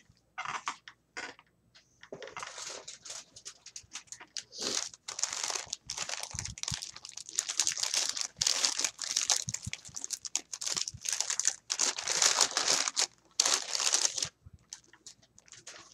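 Glossy plastic wrapping crinkling and rustling as a package is handled and unwrapped. It starts about two seconds in, runs in dense crackling spells, and dies away near the end.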